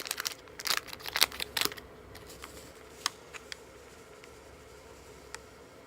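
Paper towel rubbing and a small plastic tray and spoon being handled as they are wiped clean: a burst of rustling in the first two seconds, then a few faint, scattered clicks.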